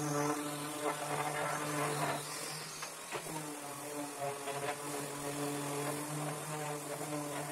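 Electric random-orbit sander running with a steady motor hum, with a couple of light knocks about two and three seconds in.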